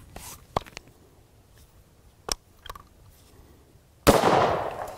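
A few small sharp clicks of the AR-15 being handled, then about four seconds in a single loud rifle shot from the AR-15 that rings out and fades over most of a second. The gas block is opened two turns, and the rifle cycles fully and locks its bolt back on this shot.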